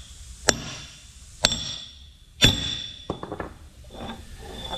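Hammer striking metal three times, about a second apart, each blow ringing, followed by a few light knocks: driving a seal into a bore of a Caterpillar D9R equalizer bar.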